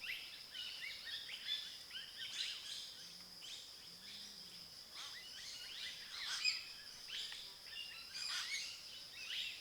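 Birds chirping, many short calls one after another, over a steady high insect drone.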